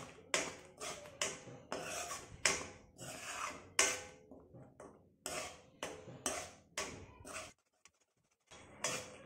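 Metal spoon scraping the bottom of a metal pan while stirring thick halwa, in short strokes about two a second, pausing for about a second near the end. The halwa is thickening in its final minutes of cooking.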